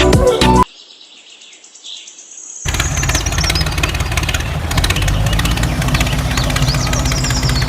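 Background music cuts off in the first second; after a quieter gap, a motor starts running steadily with a fast, even clatter.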